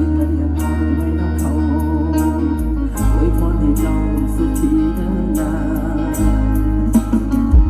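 Music played loud through a large outdoor PA sound system under test: heavy sustained bass notes that change every few seconds, under a wavering keyboard or vocal melody and a steady beat.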